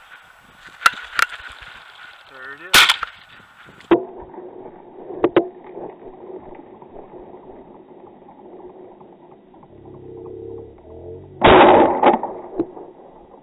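Shotgun fired at a rooster pheasant: one very loud shot a little under three seconds in, with several sharper knocks around it, and another loud blast near the end.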